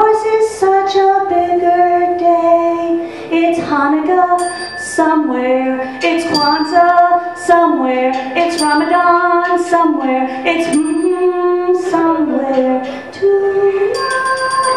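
A woman singing a melody solo through a microphone, with brief high bell-like rings now and then and a rapid ringing that starts near the end.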